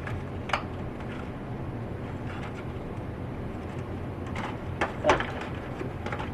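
A few short plastic clicks and knocks from a Big Mouth Billy Bass's parts being handled during disassembly: one about half a second in and a small cluster near the end, the loudest about five seconds in, over a steady low hum.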